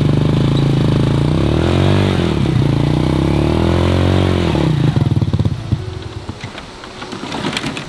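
Motorcycle engine revving hard under load, its pitch rising and then falling back over a few seconds. About five and a half seconds in the engine sound drops away sharply, leaving scattered clicks and rattles.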